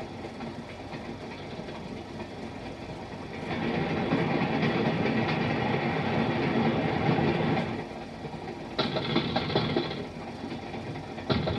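Running train as a film sound effect: a steady rumble and rattle of the carriages on the rails, swelling louder partway through and then dropping back, with sharper clattering near the end. It comes through the hiss of an old optical film soundtrack.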